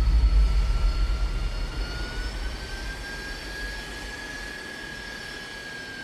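Jet engines of an Airbus A320 airliner on the runway: a steady high whine that rises a little in pitch over the first few seconds and then holds, over a deep rumble that is loudest at the start and fades away.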